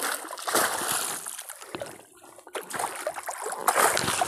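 Fishing net being hauled by hand out of lake water beside a small boat, water splashing and dripping off the mesh, with a louder splash near the end.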